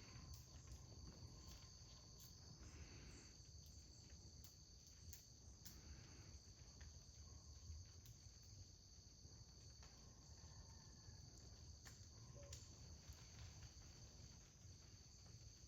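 Faint, steady, high-pitched insect trilling, with a low outdoor rumble underneath and a few scattered faint clicks.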